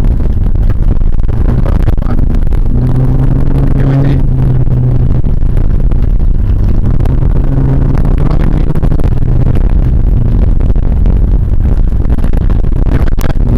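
VAZ 2114's four-cylinder engine running hard on a rough dirt track, heard from inside the cabin, its note rising and falling with the throttle over a heavy rumble from the tyres and suspension.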